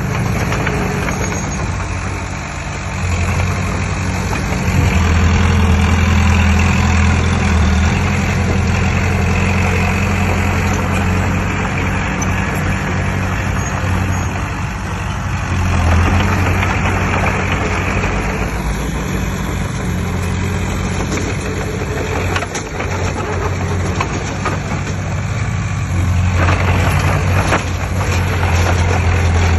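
Heavy diesel engine of earth-moving machinery running with a steady deep drone, growing louder about five seconds in and again near the end as the load changes.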